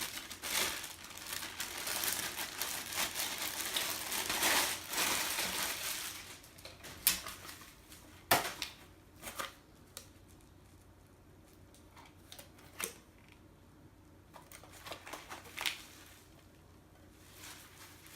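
Rustling and crinkling as a padded work belt is handled and unwrapped, lasting about six seconds. After that come a few scattered light clicks and taps, with quiet between them.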